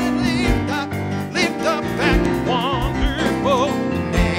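Man singing an old gospel song with a wide vibrato, to keyboard accompaniment with a steady drum beat.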